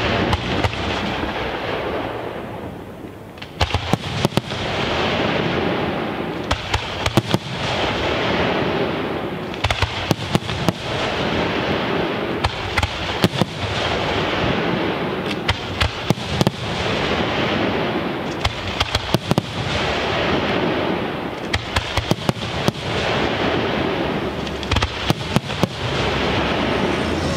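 Aerial firework shells bursting one after another in a pyrotechnic display, sharp bangs coming in quick clusters every few seconds over a continuous noisy background. Brief lull about two to three seconds in.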